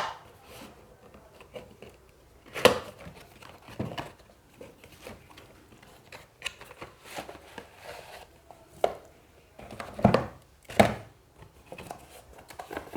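Cardboard processor retail box being opened and unpacked by hand: irregular taps, scrapes and rustles of cardboard and plastic packaging, with a sharp click right at the start and a few louder handling knocks about three seconds in and again near ten seconds.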